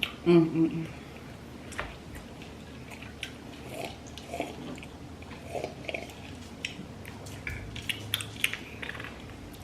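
Close-miked chewing and crunching of deep-fried seafood, with many short, irregular crackles and wet mouth clicks.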